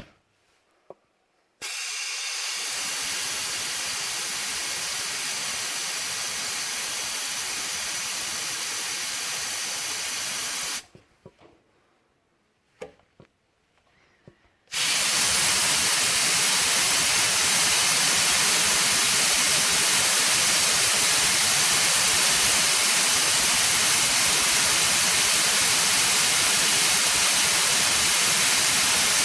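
Compressed air hissing out of a 50-litre air compressor's tank as it is let down, after the pressure switch failed to cut out and the tank went past 135 PSI. About nine seconds of steady hiss stop, and after a pause of about four seconds a louder hiss starts and carries on.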